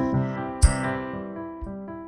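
Instrumental passage of a pop song without vocals: sustained keyboard chords fading away, with a single drum hit about two-thirds of a second in and a few softer notes near the end.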